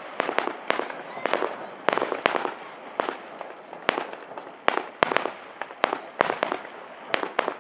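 Aerial fireworks going off in a fast, irregular string of sharp bangs, two or three a second, each followed by a short echo.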